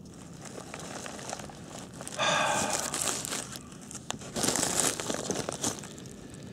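Plastic bubble wrap crinkling and rustling as a brass model locomotive is handled in it. The crinkling comes in two spells, about two seconds in and again near five seconds, with a brief squeaky tone at the start of the first.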